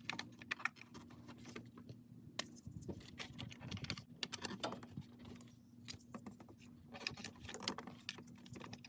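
Spark plug wire boots being pulled off one distributor cap and pushed onto another, one wire at a time: a scattered run of small clicks, snaps and rattles of rubber and plastic.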